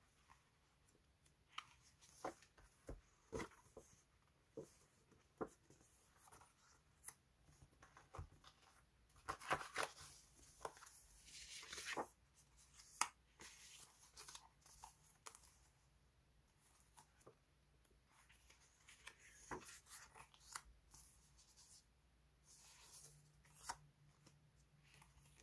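Paper label sticker sheets being handled: faint, scattered taps and light rustles as sheets are picked up and set down, with a longer rustle about ten seconds in as a stack of sheets is fanned through.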